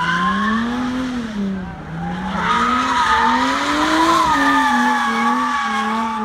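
Jaguar F-Type drifting: its engine revs rise and fall while the rear tyres squeal as they spin and slide, louder from about two seconds in.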